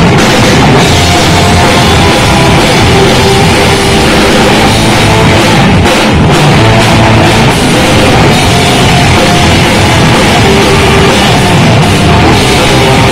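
Live rock band playing loudly without vocals: electric guitars, electric bass and drum kit.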